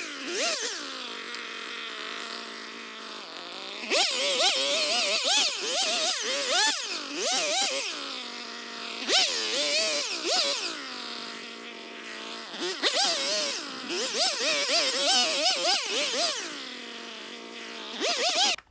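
Husqvarna 445 two-stroke chainsaw cutting through the limbs of a felled spruce: it revs up under load in several bursts of a few seconds each, with the pitch wavering, and drops back to a lower, steadier running speed between cuts. The sound cuts off abruptly near the end.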